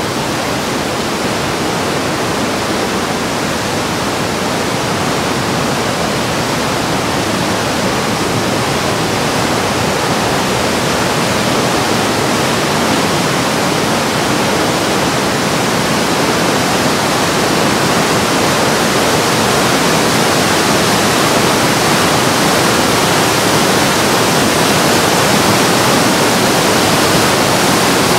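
The Breitach river rushing through a narrow rock gorge: a steady rush of white water that grows a little louder toward the end.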